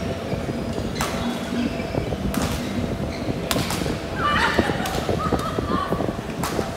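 Badminton rally: racket strings striking the shuttlecock, several sharp hits about a second or two apart, over the low hum of a large hall.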